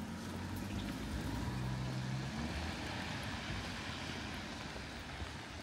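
A passing engine hum, loudest about two seconds in and then fading, over the steady hiss of rain.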